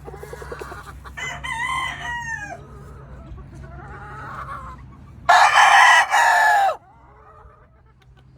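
Gamefowl roosters crowing: a fainter crow about a second in and weaker calls in the middle, then a loud full crow of about a second and a half near the end, its pitch dropping as it finishes.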